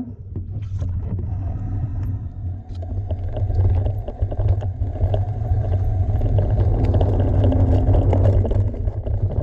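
Mountain bike riding down a dirt trail: a steady low rumble of wind buffeting the microphone and tyres on dirt, with scattered clicks and rattles from the bike over bumps. It starts suddenly and gets louder over the first few seconds.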